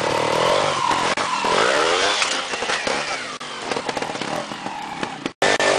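Trials motorcycle engine revving up and down in short blips over rough ground, with a brief gap in the sound near the end.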